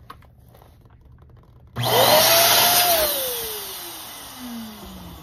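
Electric balloon inflator (Hishine) switched on about two seconds in: its blower motor starts with a sudden rush of air and a quickly rising whine, blows for about a second to inflate a balloon, then is switched off and winds down with a long falling whine.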